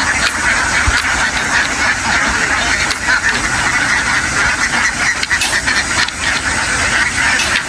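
A very large flock of ducks quacking all at once, a dense continuous chatter, with a low engine rumble underneath.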